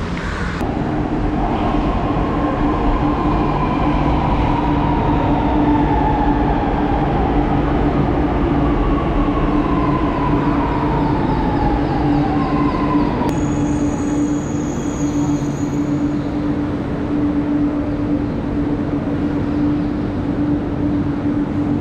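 Electric metro train pulling into a station platform, its motor whine falling slowly in pitch over a steady hum as it slows to a stop about halfway through. A click and a brief high-pitched electronic tone follow as it stands at the platform.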